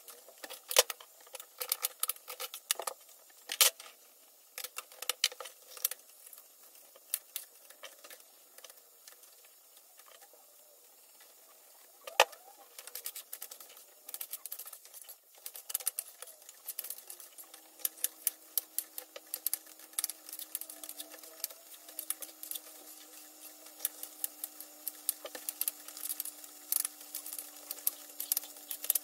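Knife cutting onion and peppers into squares on a cutting board: irregular, sharp taps of the blade striking the board. A faint steady hum comes in past the middle.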